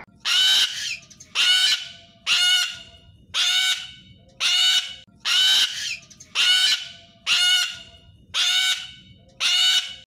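Sulphur-crested cockatoo screeching: ten harsh screeches, about one a second, each about half a second long.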